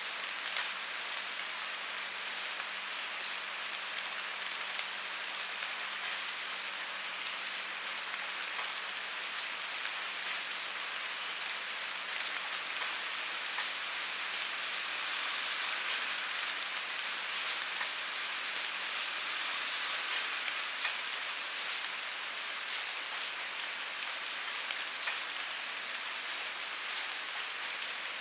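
Steady rain falling: a dense, even hiss with many separate drops ticking through it, swelling slightly for several seconds around the middle.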